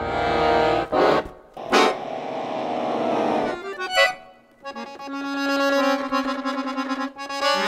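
Chromatic button accordion playing dense, dissonant chord clusters: a held cluster, short stabs, and a sharp accent about four seconds in. After a brief dip come held chords with a fast pulsing.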